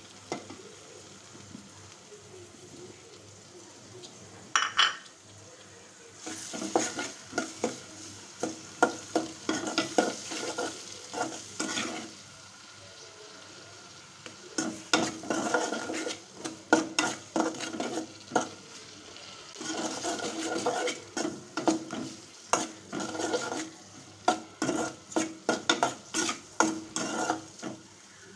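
A metal ladle stirring shrimp and radish curry in an aluminium pot, scraping and knocking against the pot in quick strokes, over a low sizzle from the frying curry. The stirring starts about six seconds in and comes in three spells with short pauses between them.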